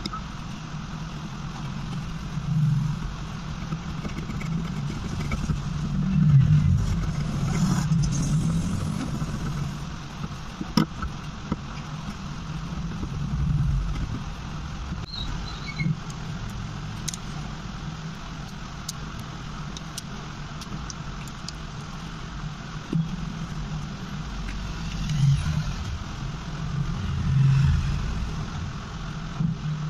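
A steady low background rumble that swells and fades several times, with a scattered handful of small sharp clicks and taps from a pry tool and plastic phone parts being handled.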